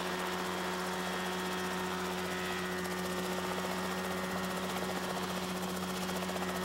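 Engine of a small Cicaré ultralight helicopter running steadily on a ground training rig: an even, unchanging drone with no change in pitch.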